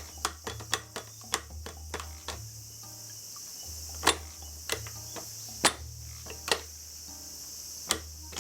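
Irregular sharp clicks and knocks of metal tools and parts being handled during transmission work, a few much louder than the rest, over a steady high drone of crickets.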